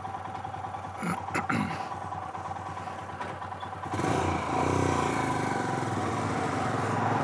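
Royal Enfield Himalayan's single-cylinder engine running at low speed, heard from the rider's seat. About four seconds in it gets louder and a steady rush of wind joins it as the bike gets under way.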